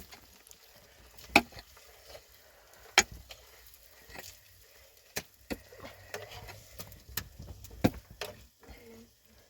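Sharp knocks and clicks at uneven intervals, about seven of them, with quiet in between.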